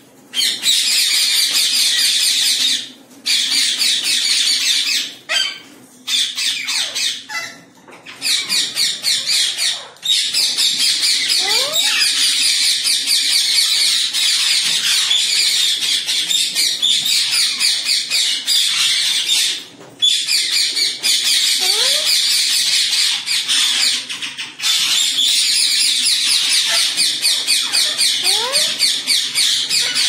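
Alexandrine parakeets squawking: long runs of rapid, harsh, repeated calls, broken by a few short pauses. A few faint rising whistles sound in between.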